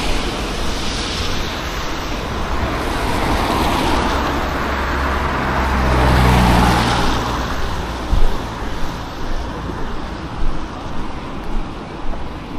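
Road traffic passing on a wet street, tyres hissing. A heavier vehicle with a low engine hum goes by about halfway through.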